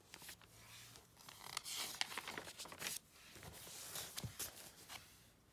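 Pages of a paper magazine being turned by hand: crisp rustling and crinkling of paper in two spells, with a short pause about three seconds in.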